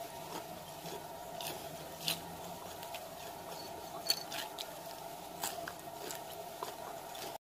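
Crispy fried onion strings crunching and crackling: faint, irregular sharp crackles, a few louder snaps spread through, over a steady low hum.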